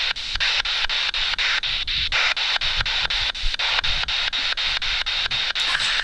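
Spirit box sweeping through radio frequencies: a steady static hiss chopped by a short gap about four or five times a second, with snatches of broadcast sound, the device's output listened to for spirit voices.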